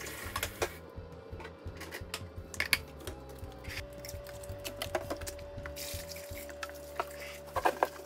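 Containers and packages being handled and set down: a string of light clicks and knocks, a sharper knock about two and a half seconds in and a quick cluster near the end, over a faint steady hum.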